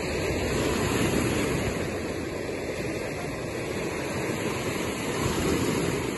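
Ocean surf breaking and washing over a rocky cobble shore, a steady rush that swells about a second in and again near the end.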